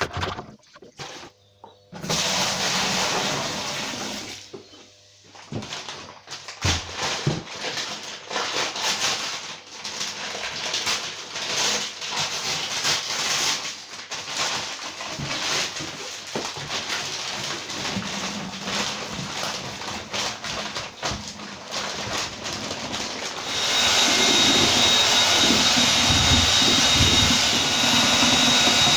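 Water sloshing and pouring in a plastic bucket for most of the stretch. Near the end an electric paddle mixer starts up and runs steadily with a high whine, mixing multi-finish plaster in the bucket.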